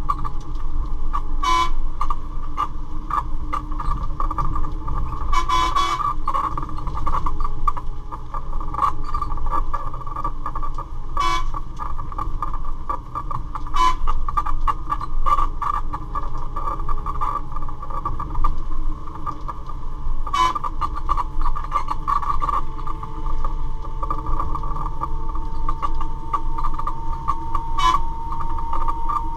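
Bus in motion heard from inside the cabin: a steady engine and road rumble under a constant high-pitched tone, with scattered sharp clicks. A second tone rises slowly in the last several seconds.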